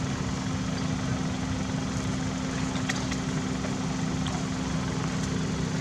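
A steady low hum of an engine idling, with a few faint clicks about three seconds in.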